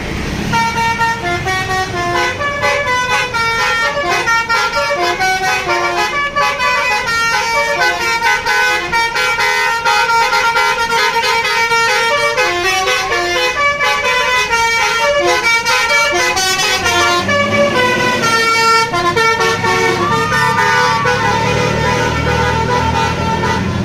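Bus basuri musical horn playing a quick tune, note after note, with several tones sounding together. A low rumble joins near the end, under fewer, longer-held notes.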